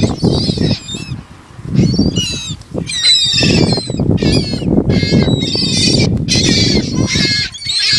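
A flock of birds calling over and over, many high calls overlapping as they crowd in for thrown bread, with a short lull about a second in. A loud, uneven low rumble runs underneath.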